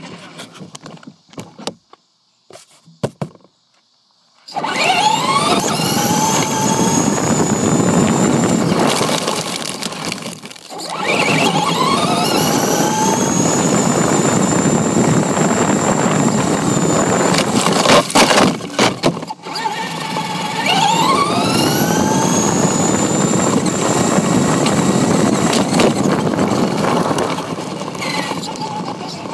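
RC truck's motor whining, rising in pitch and levelling off as the car speeds up, three times, over a loud gritty rumble of its tyres on rough asphalt, picked up by a camera riding on the car. The first few seconds are nearly quiet with a few clicks, and the noise briefly drops away twice, about ten and nineteen seconds in.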